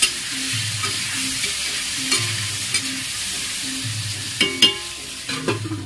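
Potato pieces sizzling as they fry in oil in a wok, with a spatula stirring and clinking against the pan a few times, the sharpest clinks about four and a half seconds in.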